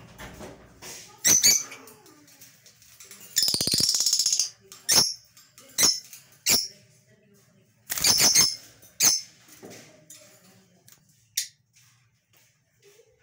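Rosy-faced lovebirds calling: short, shrill chirps repeated at irregular intervals, with two longer buzzy calls about three and a half and eight seconds in.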